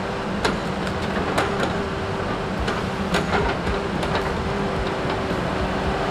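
Diesel engine of a Tigercat knuckleboom log loader running steadily under load, with irregular knocks as logs are handled.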